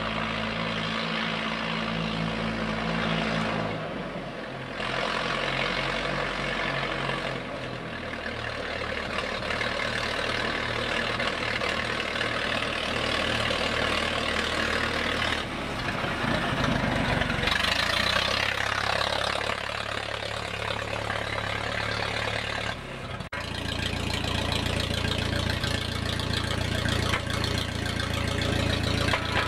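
1933 Fordson Model N tractor's four-cylinder engine running as it is driven, its note shifting a few times. About three-quarters of the way through it changes suddenly to a steady idle with the tractor standing.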